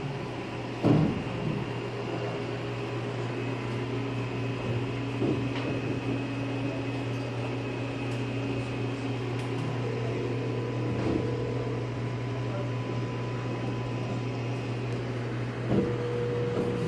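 Steady low mechanical hum, like a ventilation or air-conditioning unit, with a faint steady high tone over it. Two brief knocks, about a second in and near the end.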